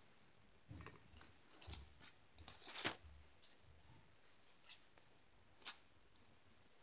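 Faint rustling and light clicks of paper money being handled and counted, with a sharper click about three seconds in and another near six seconds.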